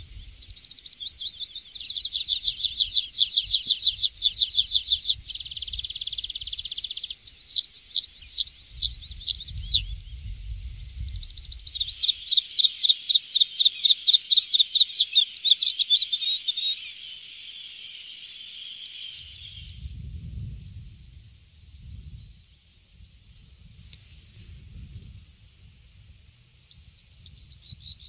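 High songbird song of fast trills, buzzy phrases and slurred notes. In the second half a bluethroat sings a series of separate ringing notes that speeds up into a rapid trill near the end.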